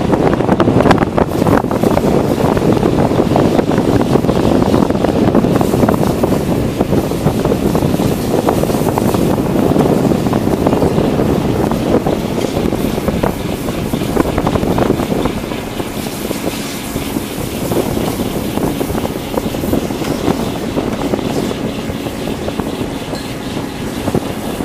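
Loud, steady running noise of a longline fishing vessel's engine and deck machinery, with wind buffeting the microphone.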